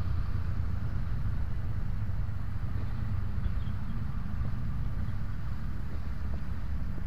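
Honda Scoopy 110 scooter's small single-cylinder engine running under way, mixed with wind buffeting the helmet-mounted camera's microphone: a steady low rumble with no change.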